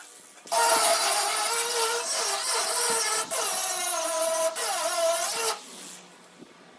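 Angle grinder grinding metal, its whine sagging and recovering in pitch as it bites. It starts about half a second in, breaks off briefly twice, and stops near the end.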